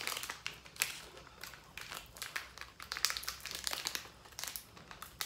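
Plastic wrapper of a single-serve Goriorio cream sandwich biscuit packet crinkling as it is handled and pulled open, a string of irregular crackles.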